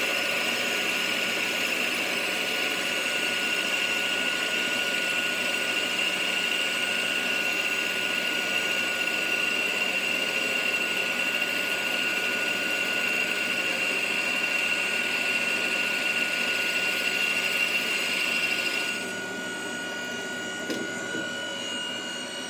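CNC lathe boring the inside diameter of a cast-aluminium TD04 turbo compressor housing under flood coolant: a steady high whine over a loud, even hiss. About 19 s in it drops quieter and the whine fades, as the bore nears completion.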